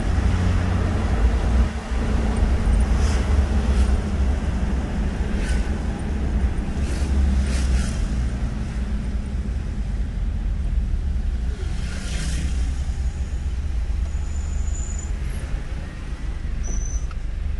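Steady low road and engine rumble heard from inside a moving car, with a few short hisses scattered through.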